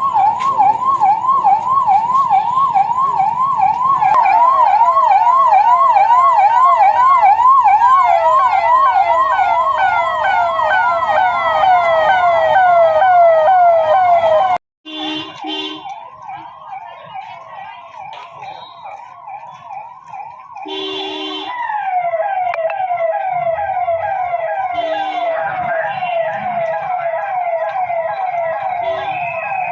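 Police vehicle siren in a fast yelp, sweeping rapidly up and down about three times a second. Partway through it drops off suddenly, then goes on quieter with a few short honks before rising to full level again.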